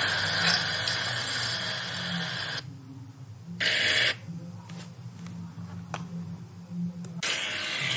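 Toy remote-control excavator's small electric motors and plastic gearbox whirring as it drives over gravel. It stops about two and a half seconds in, runs again for half a second, then gives a few clicks before whirring again near the end.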